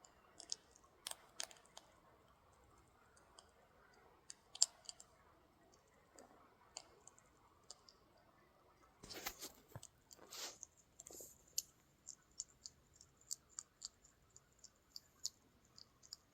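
A hedgehog crunching dry cat biscuits: faint, sharp, irregular crunches, with a busier, noisier stretch of crunching about nine seconds in.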